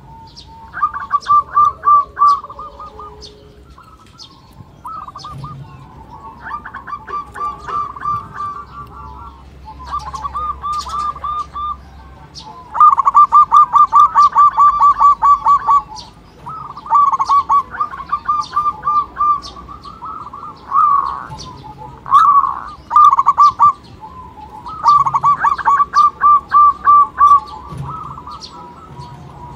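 Zebra dove (local perkutut) singing: about nine phrases of quick, rhythmic cooing notes, each lasting one to three seconds, with short pauses between. Faint short high chirps are scattered throughout.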